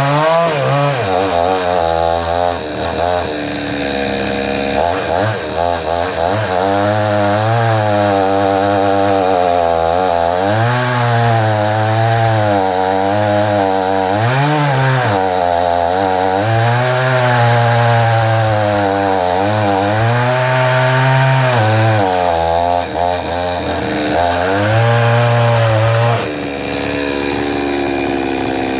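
Two-stroke 58cc Charles Jacobs petrol chainsaw cutting into wood, its engine note dipping and recovering over and over as the chain bites into a tough log. Near the end it eases off to a steadier, lower running note.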